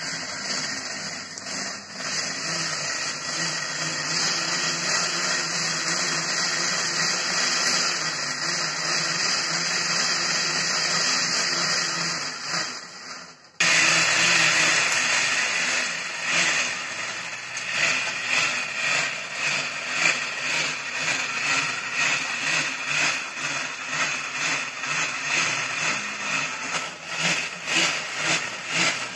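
BMX bicycle's rear tyre spinning on a roller trainer as it is pedalled: a steady whirring. About halfway through it dips and breaks off, then comes back louder and pulses a little in level.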